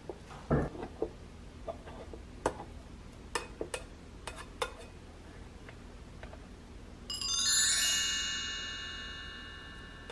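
Light plastic clicks and knocks as a mini electric rice cooker and its plastic rice paddle are handled, the loudest a thump about half a second in. About seven seconds in, a bright many-toned chime strikes and rings away over a few seconds.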